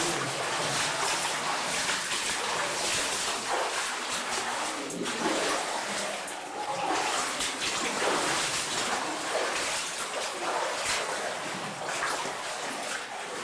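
Water in a cave stream splashing and trickling: a steady rush with many small, sharp splashes.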